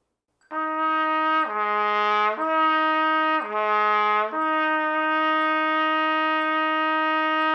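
Trumpet with the first valve held down, slurring from F down to low B flat and back up twice without a break, then holding the F for about three seconds: a lip-slur exercise.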